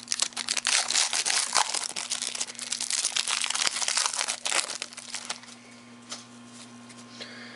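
Foil trading-card pack crinkling as it is handled and opened, dying away about five seconds in.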